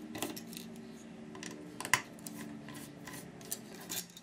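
Small hand screwdriver working the screws of a hard drive's circuit board and casing: a scatter of light metallic clicks and ticks, with one sharper click about two seconds in.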